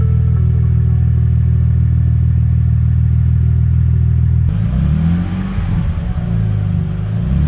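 Audi S4 B5's freshly rebuilt 2.7-litre twin-turbo V6 running after its rebuild, idling steadily at first. From about four and a half seconds in it revs up and down several times.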